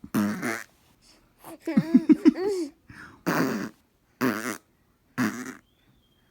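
A series of short fart noises, roughly one a second, mixed with a baby's excited laughing and babbling.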